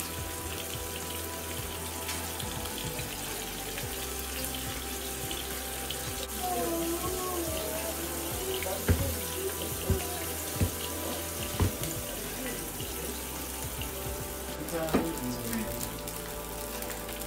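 Floured fish pieces frying in hot oil in a cast iron skillet, a steady sizzle, with a few knocks about halfway through and again near the end as a plastic bowl of flour is shaken to coat more pieces.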